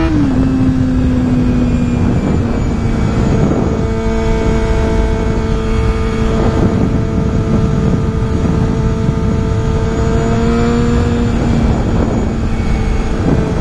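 Honda CBR250RR's 249 cc inline-four engine running on the road. The revs drop sharply just after the start, then hold steady at a cruise. Heavy wind rush runs underneath.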